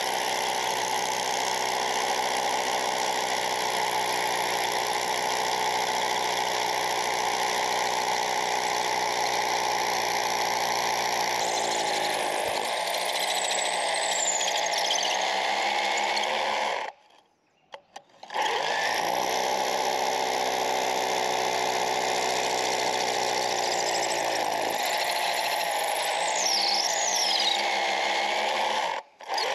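Parkside Performance 20 V cordless rotary hammer drilling with a 10 mm masonry bit into a rendered wall, running steadily. It cuts out for about a second and a half partway through, then starts again, and stops briefly once more near the end.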